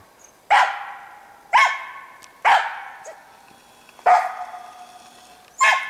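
Hunting laika barking at a squirrel treed in a spruce, baying it to mark the game for the hunter. Five sharp barks about a second apart, each trailing off in a short echo.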